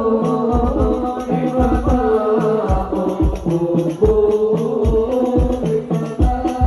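Male vocal group singing a sholawat, an Arabic devotional song, together into microphones. Hadroh percussion backs them, with deep frame-drum strokes keeping a steady rhythm and jingles rattling.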